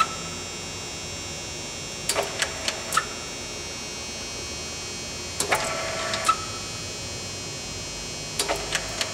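Steady electrical hum with a faint high whine from a radial arm drill press, broken three times by a short run of small motor whirring and clicks.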